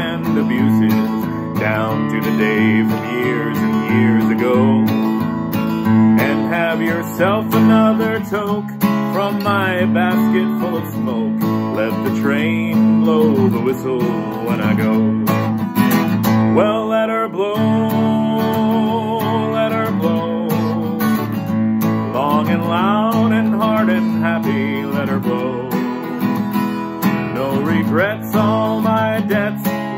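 Acoustic guitar strummed in a steady country rhythm, with a wavering melody line over it.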